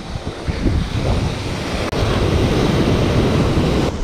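Ocean surf washing onto the beach, with wind rumbling on the microphone. The rush is steady apart from a momentary dropout about halfway through.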